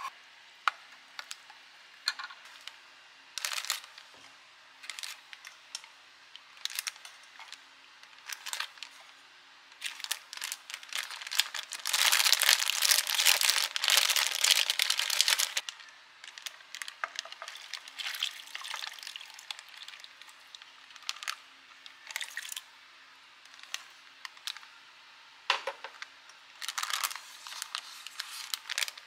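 Plastic zip-top bag crinkling as it is held open and handled, loudest for a few seconds around twelve to fifteen seconds in, among scattered light clicks and taps.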